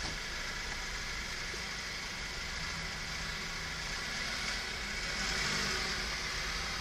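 Steady outdoor rumble and hiss, growing a little louder about five seconds in.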